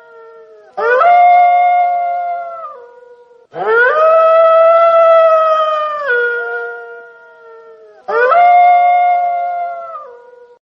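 A single wolf howling three times: each howl rises sharply to a steady held note, then drops in pitch in a step or two and fades. The middle howl is the longest, about four seconds.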